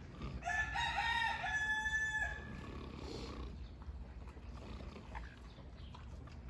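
A rooster crows once, a single crow of nearly two seconds starting about half a second in.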